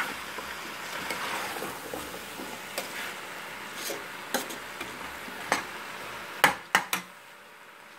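Metal spoon stirring and scraping diced carrots and potatoes in a stainless steel pot, with sharp clinks of the spoon against the pot, several close together near the end.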